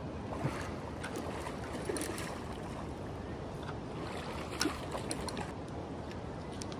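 Steady rushing of river water through rapids, with a few light clicks about half a second in and again a little past the middle.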